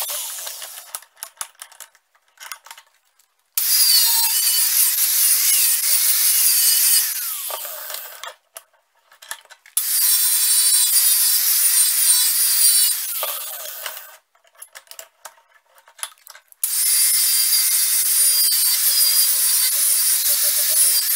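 Angle grinder with a wire cup brush scrubbing an old metal spokeshave held in a vise, in three runs. Each of the first two runs ends with a falling whine as the grinder winds down, and the gaps between runs hold only scattered clicks and knocks of handling.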